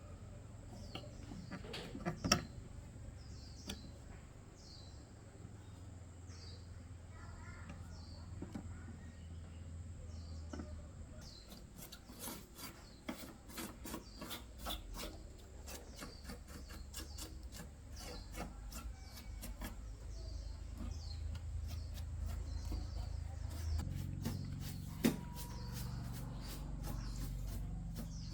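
Rubbing and scraping with small sharp clicks and taps, dense in the second half, over a low hum: hand work on a TV during repair. A short high falling chirp repeats about once a second through the first half.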